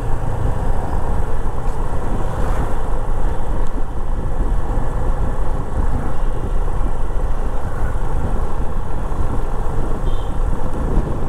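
Yamaha FZ25 motorcycle riding steadily along a road: its single-cylinder engine running under a loud, steady rush of wind on the action camera's microphone.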